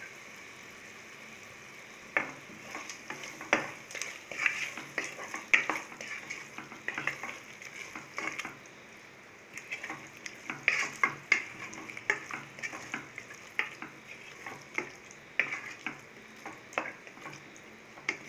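A spoon scraping and knocking against the inside of a pressure cooker as chicken pieces in curd and masala are stirred, over a steady sizzle of the food frying in the pot. The stirring clicks begin about two seconds in and come irregularly, several a second.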